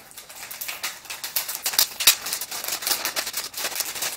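Paper gift wrapping and tape being picked at and torn open by hand, without scissors: a dense run of irregular crinkling and crackling, with one sharper snap about halfway through.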